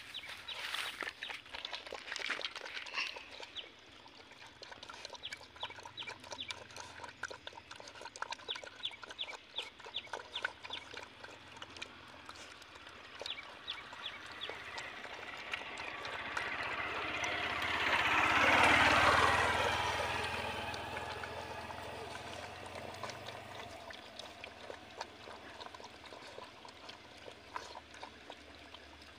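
Two puppies eating rice from a plastic bowl, with rapid small chewing and lapping clicks. Around the middle, a louder rushing noise swells and fades over several seconds.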